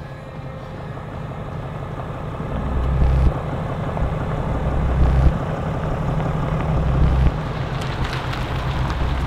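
Pickup truck driving while towing a bass boat on its trailer: a steady low engine rumble with tyre noise, growing louder, with heavier low surges every couple of seconds.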